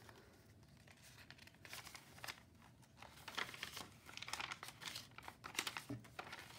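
Wrinkled paper pages of a handmade junk journal being turned and smoothed by hand: soft, intermittent paper rustling and crinkling in several short flurries.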